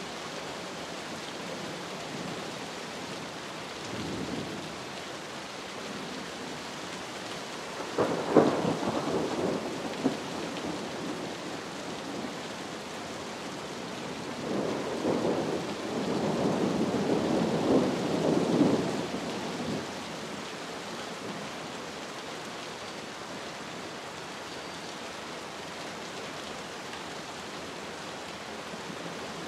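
Steady rain with thunder rolling through it. A faint rumble comes about four seconds in, a louder clap about eight seconds in rolls on for two or three seconds, and a longer rolling rumble of about five seconds comes past the middle.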